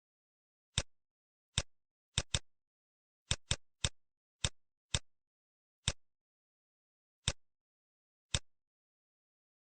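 Computer mouse clicking, about a dozen single sharp clicks at uneven intervals with a few quick double-clicks, and silence in between.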